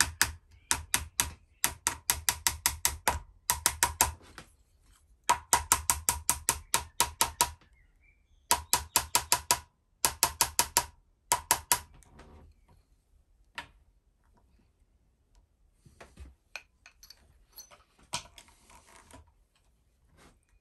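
Small ball-peen hammer tapping a tenon pin into a long rifle's wooden fore-stock, in quick runs of light, slightly ringing taps, about six a second. In the second half the taps grow sparser and quieter.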